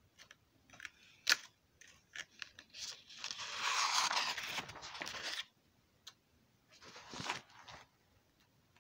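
A paper page of a drawing book being handled and turned: a few light clicks and rustles, then a longer loud rustle about three seconds in as the page goes over, and a shorter rustle near the end.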